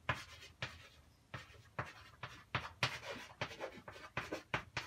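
Chalk writing on a blackboard: a quick, irregular run of short scratching strokes and taps as letters are formed.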